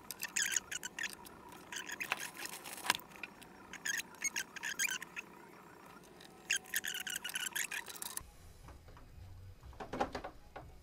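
Quick clusters of small plastic clicks and rubbing as the iris motor assembly of a projector is handled and seated back into place, in bursts of about a second with short pauses between.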